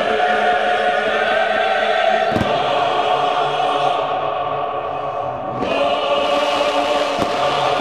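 Choir singing long held chords, moving to a new chord about two-thirds of the way through.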